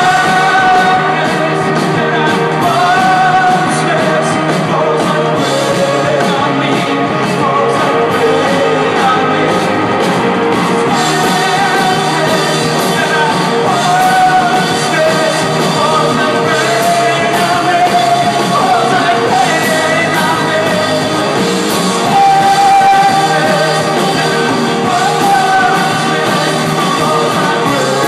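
Live rock band playing: a lead singer's voice over guitars, keyboard and drums.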